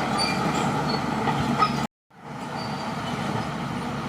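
Crawler bulldozer's diesel engine and tracks running steadily under load, with a few brief faint high squeaks. The sound cuts out abruptly for a moment about halfway through, then fades back in.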